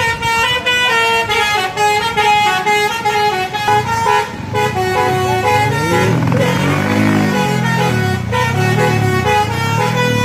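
Telolet bus horn, the multi-tone musical horn of an Indonesian bus, playing a fast tune of short notes that step up and down. From about four seconds in, a lower wavering, sliding sound plays underneath it.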